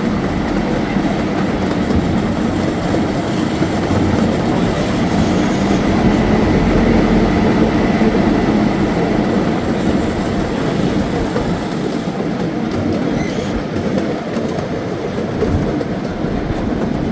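Miniature replica train running along its track, heard from aboard the cars: a steady rumble and rattle of the carriages, with a faint steady high whine for most of the stretch.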